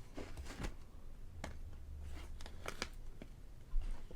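Light handling sounds as a baked sweet potato is peeled and moved about: a few soft taps and clicks with faint rustling.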